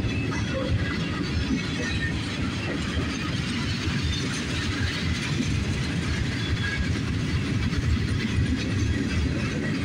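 Freight train cars (covered hoppers and tank cars) rolling past at close range: a steady, low rumble of wheels on the rails with faint clatter.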